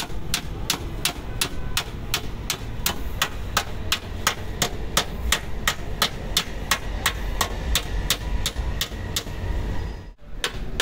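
A small body-repair hammer tapping on a Honda Civic FD's front fender, to knock out small dents left by stone hits. The taps come at an even pace of about three a second and stop near the end, over a steady low rumble.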